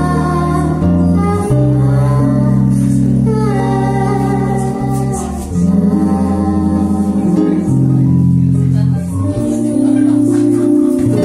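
Live band music: an electric bass holds long low notes under a sung melody, with hand drums (djembe and bongos) keeping time.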